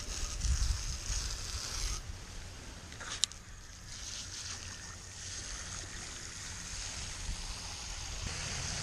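Water spraying from a garden hose nozzle into a concrete birdbath as it is refilled: a steady hiss and splash, with one sharp click about three seconds in.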